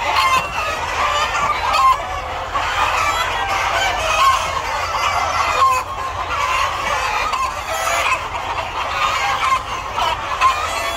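A large flock of breeder chickens clucking continuously, many overlapping calls at once with no break.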